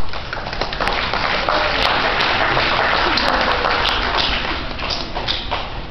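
Audience applauding: many overlapping hand claps that swell in the first second and die down over the last two.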